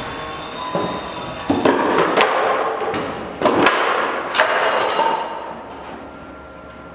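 Laminated wood furniture panels and metal parts being picked up, shifted and dropped on a hard floor: a run of clattering knocks and scrapes that tails off near the end.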